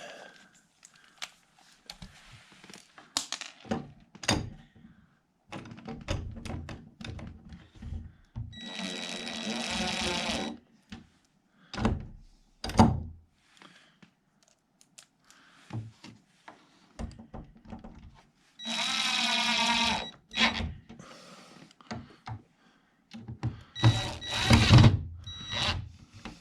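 A cordless drill/driver runs three times in spells of one to two seconds, working the hinge screws, with a whirring motor tone. Between the runs come scattered knocks and clicks as the hinge, screws and tools are handled.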